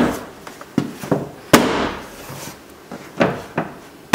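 A hand striking a plastic door trim panel to snap its push-in retaining clips into a 1996 Ford F-150 door: about six sharp knocks at uneven intervals, the loudest about a second and a half in.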